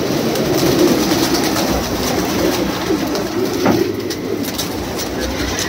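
Domestic pigeons cooing, their overlapping calls making a continuous low, wavering murmur, with scattered light clicks and rustles among them.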